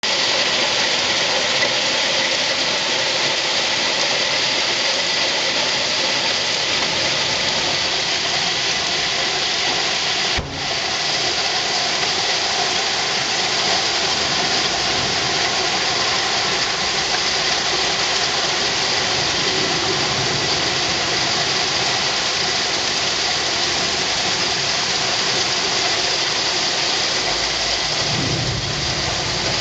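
Torrential rain pouring down onto pavement, hedges and rooftops: a dense, steady hiss, dipping briefly about ten seconds in.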